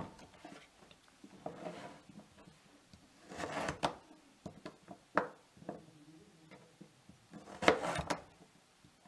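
Kitchen knife cutting raw turnip into cubes, each cut ending in a sharp knock of the blade on a wooden surface, in a few irregular groups of cuts.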